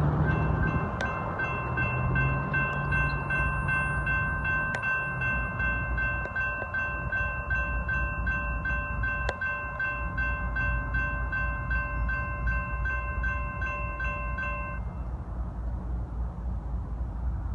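A railroad warning bell ringing in quick, even strokes, which stops about 15 seconds in. Under it runs the low rumble of a passing freight train.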